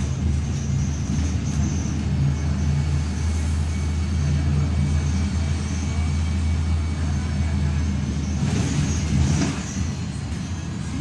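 Volvo Neobus Megaplus B290R city bus driving along, heard from inside the passenger cabin: a steady low engine and road drone. A brief rush of noise comes about eight and a half seconds in.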